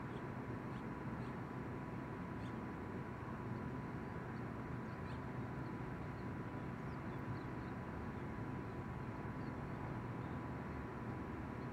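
Steady outdoor background noise with a thin steady whine through it, and faint short bird chirps scattered throughout.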